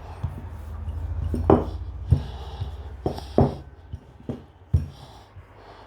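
Several sharp knocks and clinks of kitchen utensils against a worktop, about six spread over a few seconds, over a steady low hum that fades out about four seconds in.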